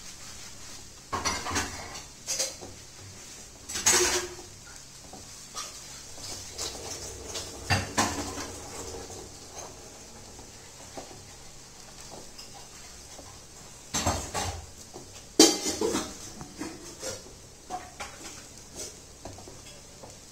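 Silicone spatula stirring poha (flattened rice) in a steel kadai: irregular scraping and knocking against the pan, with a few sharper clanks.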